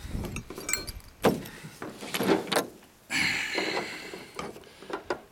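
Handling noise from a Polaris Ranger EV's onboard battery charger being turned over on a towel and a large flashlight being picked up: scattered knocks and clicks, with a sharp knock about a second in and a short scraping rustle a little after three seconds.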